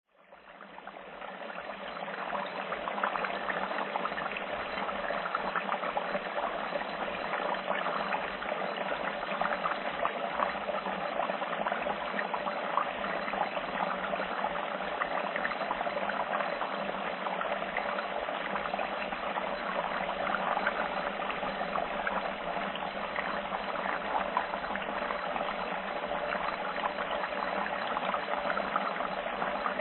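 Food frying in hot oil: a steady sizzle thick with tiny crackles and pops, fading in over the first couple of seconds and then holding even.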